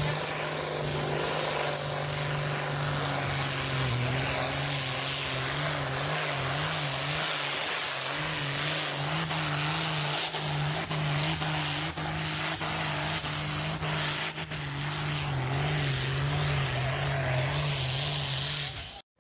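International Harvester DT-358 six-cylinder diesel with a Holset HX60 turbo, running flat out under full load as the pulling tractor drags the sled. It is a steady, high-revving drone whose pitch wavers slightly, and it cuts off abruptly near the end.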